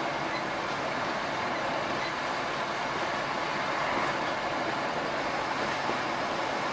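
Steady road and tyre noise of a truck driving along a highway, heard from inside the cab.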